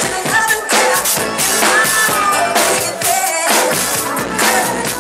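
Live drum kit played along with a DJ's funk dance track: a steady beat of drums and cymbals mixed in with the recorded music.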